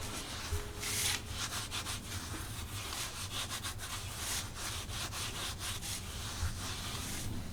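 Repeated rough rubbing strokes, about two a second, keeping on steadily.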